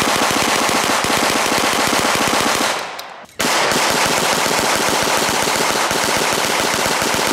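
Tippmann Armory 9mm Gatling gun, hand-cranked, firing a rapid, even string of 9mm full metal jacket rounds from a 30-round magazine. The stream drops off and stops briefly about three seconds in, then resumes at the same rate.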